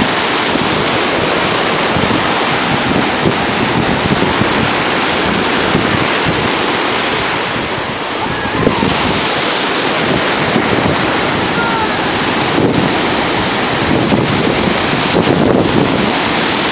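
Ocean surf breaking in the shallows: a steady rush of waves and foam, easing slightly before a fresh wave breaks about nine seconds in. Wind buffets the microphone.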